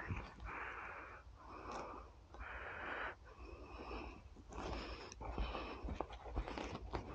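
A person breathing in and out close to the microphone, one breath about every second.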